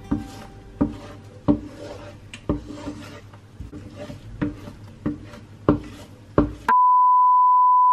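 Wooden spatula stirring scrambled eggs in a frying pan, knocking against the pan roughly every second or less. Near the end the stirring cuts off and a loud, steady high-pitched beep takes over.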